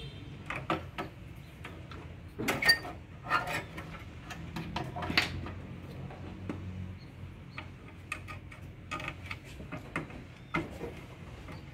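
Scattered clicks and light metal clatter as a screwdriver and small sheet-metal parts of a gas water heater are handled during disassembly, in a few short clusters, over a low steady hum.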